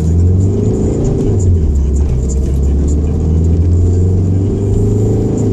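Steady engine and road rumble inside a moving Renault's cabin, with music from the car radio playing over it.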